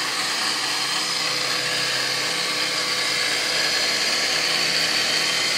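Small electric house water pump running steadily: a constant motor hum with a high whine over it. It is pumping, but the water is not going into the house.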